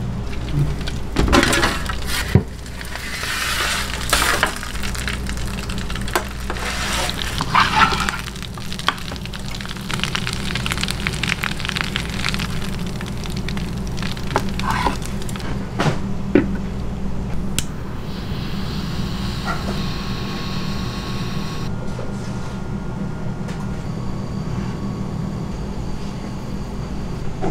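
Commercial kitchen sounds: a steady low machine hum under intermittent clatter, scraping and rustling as food is handled, with a few sharp clicks.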